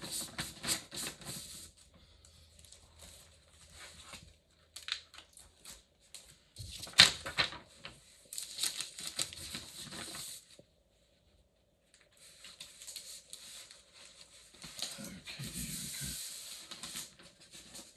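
A sheet of thick 300 GSM paper being taken out and handled: bouts of rustling and crinkling with a few clicks and knocks. The loudest knock comes about seven seconds in.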